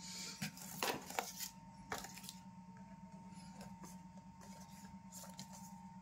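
Cardboard retail box handled and turned over in the hands: a few quick rustles and taps of paperboard in the first two seconds or so, then only a faint steady hum.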